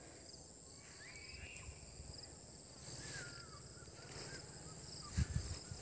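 Insects trilling steadily at a high pitch, with two short bird calls about one and three seconds in, and a couple of low thumps near the end.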